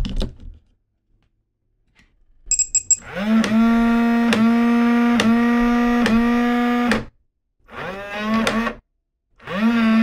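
Lockly Flex Touch smart deadbolt running its power-up self-test. About two and a half seconds in come four quick high beeps. Its motor then whirs steadily for about four seconds with a click roughly once a second, and runs twice more in shorter bursts, each spinning up at the start.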